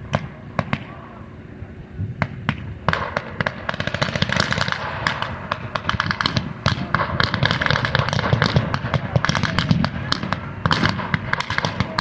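Small-arms gunfire firing blanks: a few scattered shots, then from about three seconds in a dense, rapid run of overlapping shots.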